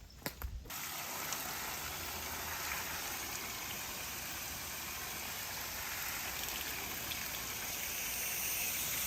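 Water spraying from a garden hose wand through an outdoor condenser coil, washing it from the inside out: a steady hiss of spray that starts just under a second in after a few clicks.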